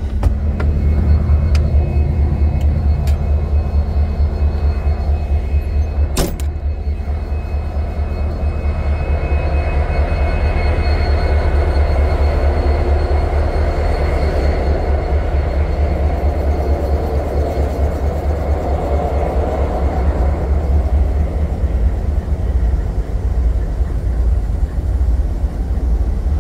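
Diesel-electric freight locomotive engines running with a loud, steady low rumble. A single sharp knock sounds about six seconds in.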